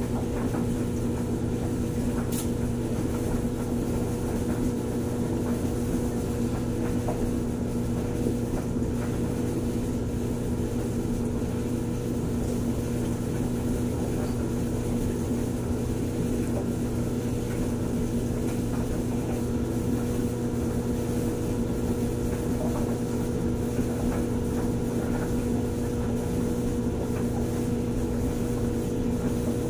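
Steady machine hum at a constant low pitch, unchanging throughout.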